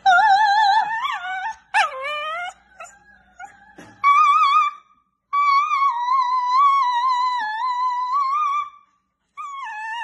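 A small shaggy dog howling along with a woman's high singing voice, in long, high, wavering notes. The longest held howl runs for about three and a half seconds in the middle.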